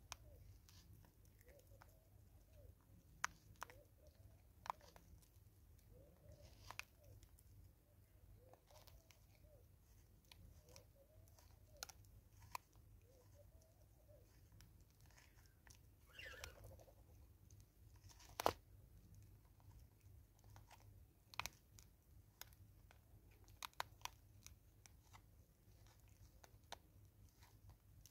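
Faint crunching and chewing of a vervet monkey eating seed from a cut plastic bottle, with scattered sharp clicks and crackles as it digs into the bottle; one click about two-thirds through is the loudest.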